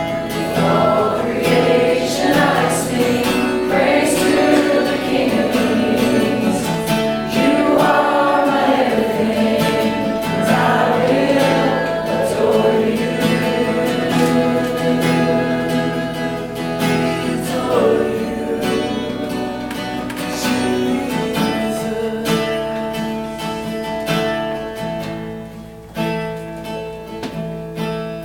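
Worship singing by a group of voices, accompanied by strummed acoustic guitar. The voices drop out a little past halfway, leaving the guitar and held chords playing on.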